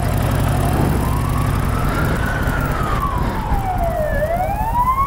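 Police car siren wailing, slowly rising and falling in pitch and then rising again, over the low steady running of a Harley-Davidson Iron 883's V-twin engine.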